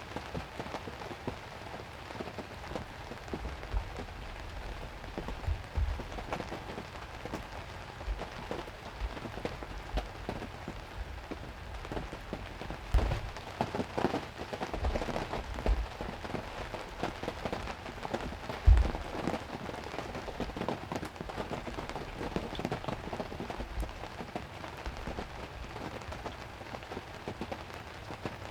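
Heavy rain falling on a hunting ground blind: a steady patter with irregular heavier drops knocking, the loudest a little past the middle.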